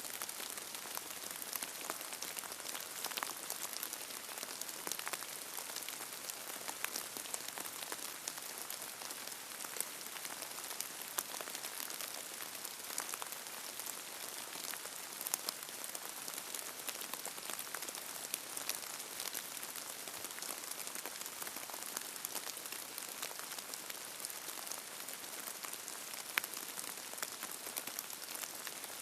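Steady rain falling: a dense, even hiss of drops with many sharp individual drop hits scattered through it.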